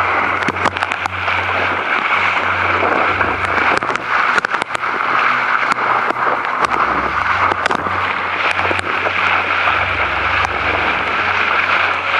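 Water rushing and splashing along a sailing dinghy's hull as it sails through choppy water, with spray crackling against the camera and a low buffeting rumble.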